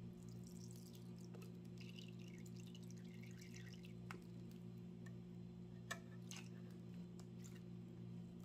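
Lemon juice trickling from a squeeze bottle into a metal measuring spoon for the first few seconds, then a few light clicks as the steel spoon touches the stainless steel jug. A steady low hum runs underneath.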